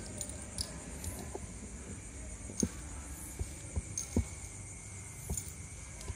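Scattered soft knocks and taps over a steady low hum, with a faint high steady chirring like night insects.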